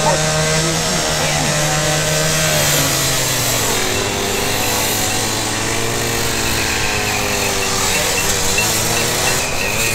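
Gas-powered cut-off saw running under load as its disc blade cuts into the steel roof of a limousine. The engine note drops about three and a half seconds in and holds lower as the blade bites.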